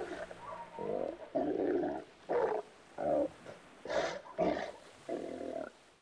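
Seals calling: a run of about seven short, rough calls, each well under a second, with brief pauses between them.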